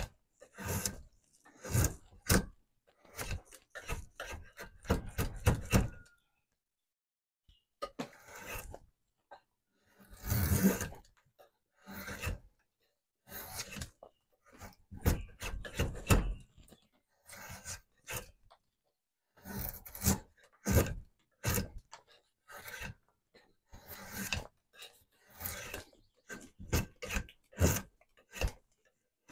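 Drawknife shaving a wooden workpiece held in a bench vise: a run of short, irregular scraping strokes, with a pause of about a second and a half some six seconds in.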